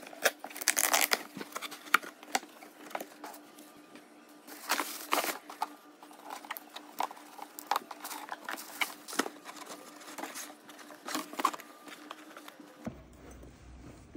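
Cardboard boxes, ribbon and tissue paper being handled and opened by hand: irregular scraping, tapping and crinkling in short bursts. Near the end the sound gives way abruptly to a low hum.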